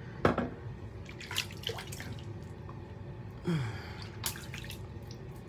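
Wet shaving with an adjustable double-edge safety razor: a handful of short, irregular scrapes and water drips.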